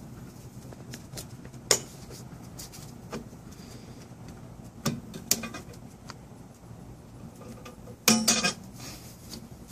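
Metal clinks and clicks of pliers and spring hardware on a rear drum brake's shoes: a few sharp separate clicks, with the loudest burst of clinks about eight seconds in.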